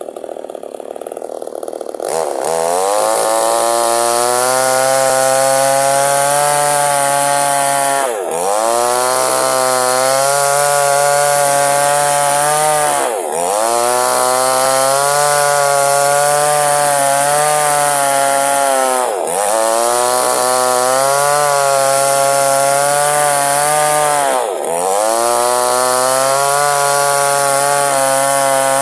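Chainsaw at full throttle cutting lengthwise through wood to split it in two. After about two seconds it revs up, then the engine note and level sag briefly and recover four times.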